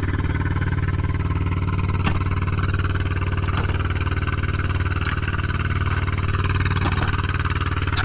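Small fishing boat's engine running steadily at an even speed, a low droning hum with a fast, regular firing pulse.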